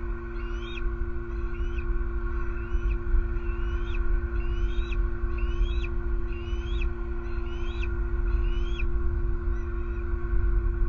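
A juvenile bald eagle calling: a run of short, rising, whistled squeals, about three every two seconds, that stops about nine seconds in. Under the calls run a steady low electrical hum and the rumble of road traffic.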